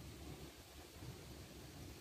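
Faint wind buffeting the microphone, a low, uneven rumble over a steady hiss.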